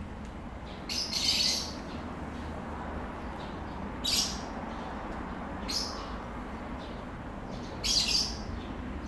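Birds calling: four short, harsh chirps about a second, four, six and eight seconds in, the first and last the longest and loudest, over a steady low background rumble.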